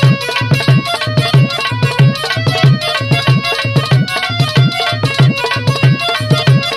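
Instrumental interlude of Indian folk music: a hand drum plays a steady beat of about three strokes a second under a held melodic line.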